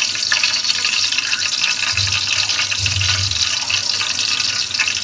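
Hot oil sizzling steadily in a metal pot, with whole spices and bay leaves frying in it. A low rumble comes in briefly about two seconds in.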